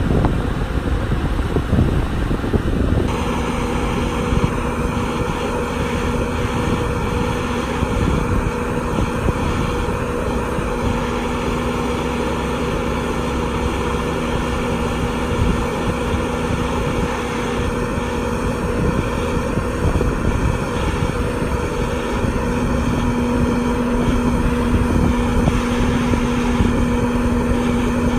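Truck-mounted crane's diesel engine running steadily with a low hum as it lowers a heavy steel culvert on its cables. Wind buffets the microphone throughout, and is heaviest in the first few seconds before the engine hum comes in.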